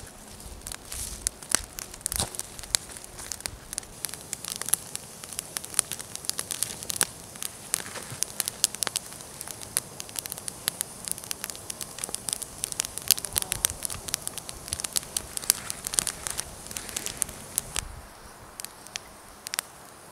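Small campfire of dry sticks crackling, with many sharp irregular pops. The crackling thins out near the end.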